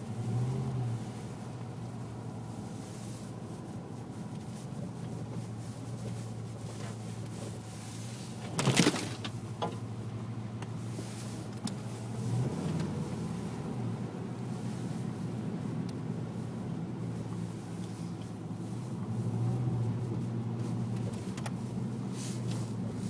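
Motor vehicle driving, with a steady engine hum and road noise. About nine seconds in comes one loud, sharp knock, the loudest sound here, followed by a few fainter knocks.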